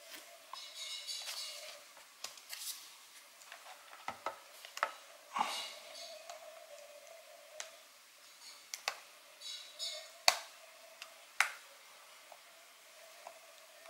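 Hands working a laptop screen panel and its display cable connector: scattered small sharp clicks and taps with soft rustling in between, the loudest clicks about ten and eleven seconds in.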